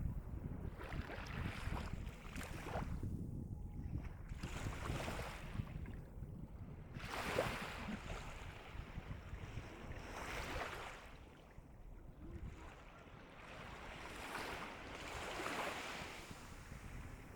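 Calm sea waves of the East Sea washing in on the shore, each gentle break swelling and hissing away every few seconds over a steady low rumble, with a brief lull about two thirds through.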